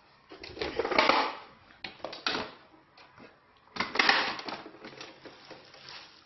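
Hard plastic booster seat being handled and set onto a chair, clattering and scraping against it in three bursts: about a second in, a short one a little past two seconds, and a longer one about four seconds in.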